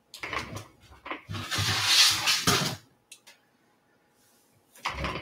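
Objects being handled on a tabletop: a few short knocks and clatters, then a rustle lasting about a second and a half, then more knocks near the end.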